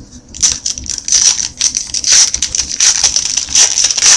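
Foil wrapper of a 2013 Topps Archives baseball card pack being torn open and crumpled by hand: a steady run of sharp crinkles.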